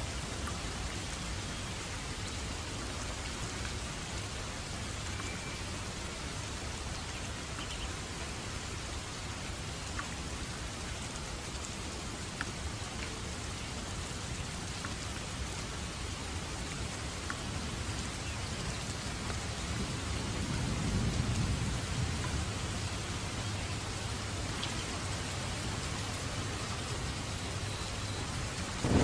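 Steady rainfall with scattered drop ticks. A low roll of thunder swells and fades about two-thirds of the way through.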